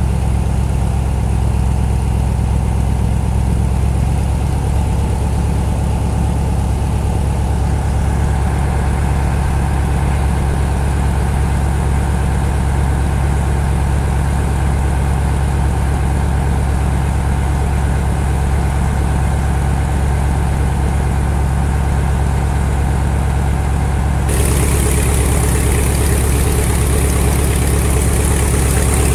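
The engine of the Strizh-7 passenger boat running steadily under way, a loud, constant low drone. About three-quarters through, the hiss of churning propeller wash at the stern comes up suddenly over it.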